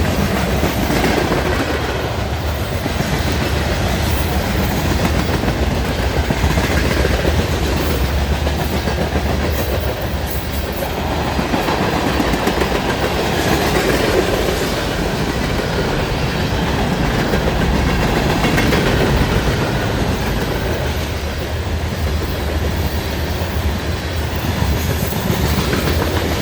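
A train rolling steadily past, its wheels running continuously on the rails.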